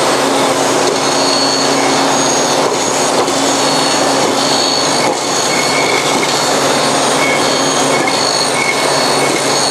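Forrest Manufacturing Model 236 vertical bandsaw blade cutting through a thick plastic mat as the traveling table feeds it. The result is a loud, steady rasp with short high-pitched squeals coming and going.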